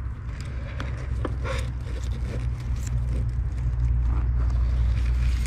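Steady low rumble on the microphone that grows slightly louder, with scattered light crackles and clicks of dry pine needles being disturbed.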